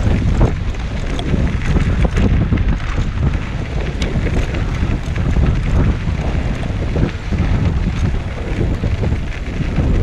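Wind rushing over an action camera's microphone while riding a recumbent trike along a dirt trail. It is a steady low rumble, with scattered small knocks and crunches from the ride.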